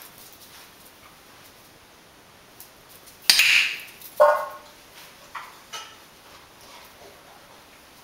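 A sharp click from a training clicker about three seconds in, then about a second later a clatter with a brief metallic ring from a stainless steel dog bowl, followed by a few lighter clinks as a rottweiler puppy eats from it.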